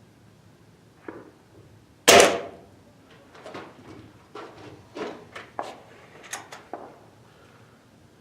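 Beeman Silver Kodiak .22 break-barrel air rifle firing once with a sharp crack about two seconds in, followed by a run of smaller metallic clicks and clacks.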